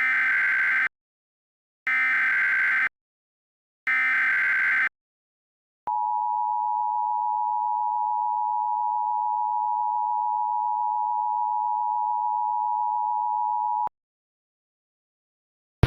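Emergency Alert System SAME header: three one-second bursts of screechy digital data tones, a second apart, encoding a tornado watch. Then a steady attention tone sounds for about eight seconds and cuts off suddenly.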